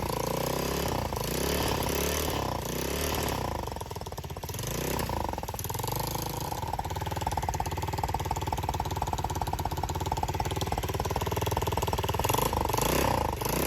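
125cc engine of a motorized chopper bicycle running in first gear, revving up and down several times in the first few seconds and again near the end, with steadier running in between.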